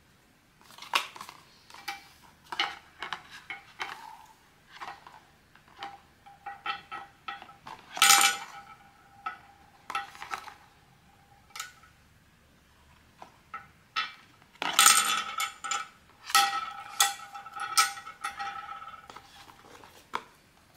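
Small zinc-alloy pin badges clinking and tapping as they are handled: a run of separate light clicks, some with short metallic rings. The loudest clinks come about eight seconds in and again around fifteen to eighteen seconds.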